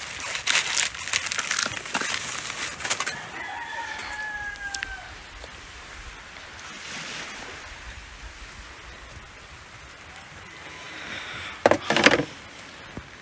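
A rooster crows once about three seconds in, a drawn-out call that sags slightly in pitch at its end. Crunching and rustling noise comes in the first few seconds, and two short loud scuffs come near the end.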